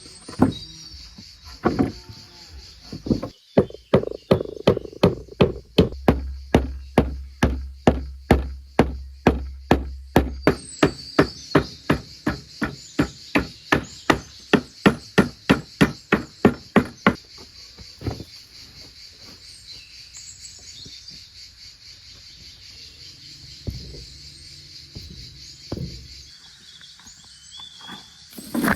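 A long run of hammer blows, about three a second, for some fourteen seconds, then a few single knocks. A steady trill of insects runs underneath.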